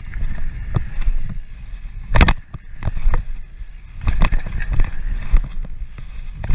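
Mountain bike ridden fast down a dirt and gravel trail: tyres rolling over loose dirt with wind rumbling on the chest-mounted action camera's microphone, and sharp clattering knocks as the bike hits bumps, loudest about two seconds in and again around four seconds.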